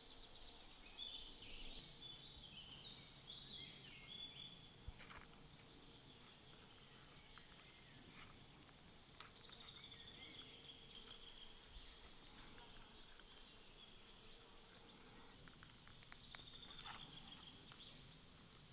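Near silence: faint outdoor ambience with distant bird chirps and a few light clicks.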